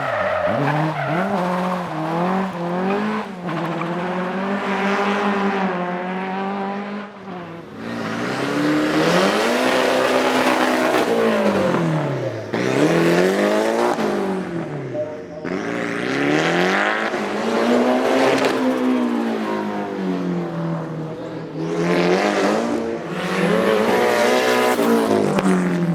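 Datsun sprint car's engine being driven hard, revving up and dropping back over and over, its pitch climbing and falling every few seconds.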